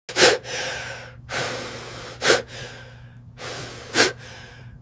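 A person coughing three times, about two seconds apart, with hissing breaths between the coughs and a faint steady hum underneath.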